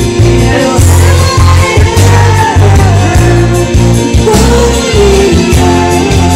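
Loud karaoke music: a voice singing a wavering melody over a heavy, pulsing bass, played through a karaoke speaker system.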